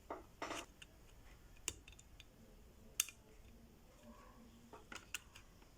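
Faint, scattered small clicks and taps as a phone's charging port is set into place on the circuit board and checked for fit, the sharpest about three seconds in.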